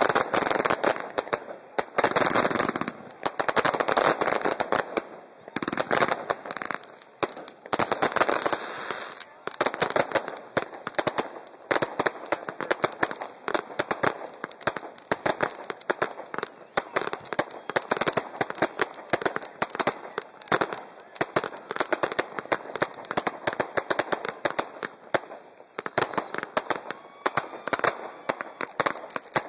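Fireworks display: a continuous barrage of aerial shell bursts and crackling reports, many sharp bangs a second, heavier and more sustained in the first several seconds, then a rapid unbroken crackle.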